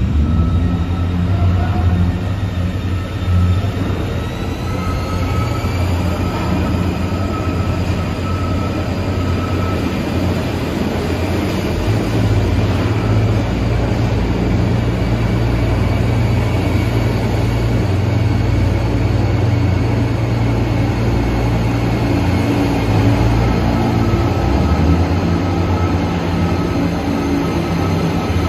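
New York City subway train running through the station: a heavy steady rumble with a motor whine that rises in pitch about four seconds in and then holds steady.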